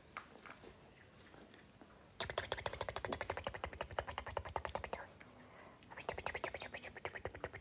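A puppy making rapid, wet suckling clicks in two runs: the first starts about two seconds in and lasts nearly three seconds, and the second starts about six seconds in.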